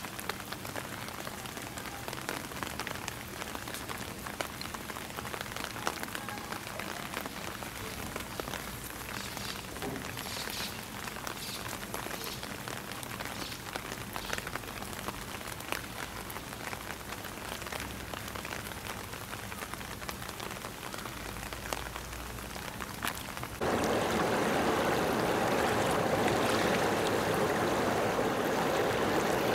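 Steady rain falling, an even patter with many small drop ticks. A few seconds before the end it cuts abruptly to a louder, steady rush of water.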